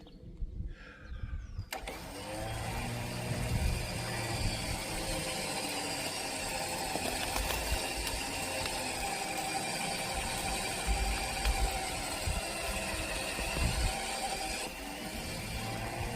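Electric winch motor starts about two seconds in and runs steadily, with a whine of several level tones over a low rumble.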